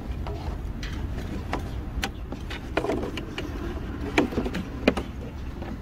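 Cotton work gloves rubbing along a metal engine oil dipstick as it is wiped clean, with a few scattered light clicks and taps, over a steady low hum.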